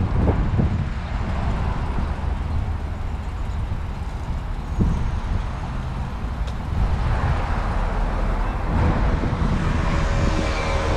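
Steady low rumble of motor vehicles, with a few soft thumps in the first second and another about five seconds in.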